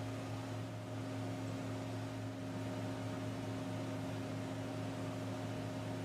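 Steady hum of a running machine tool: a few constant tones over an even hiss, unchanging throughout.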